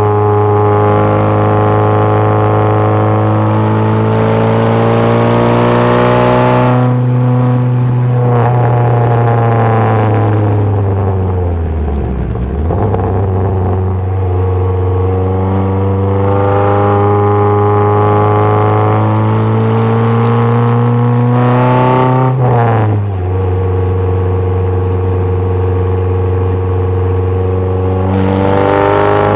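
Ford 2.0 Zetec four-cylinder engine in an MG Midget, heard from the open cockpit under hard driving. The revs climb steadily, break off and fall as the car slows for a bend, then build again. About two-thirds of the way through the pitch drops sharply at a gear change, and the revs climb once more.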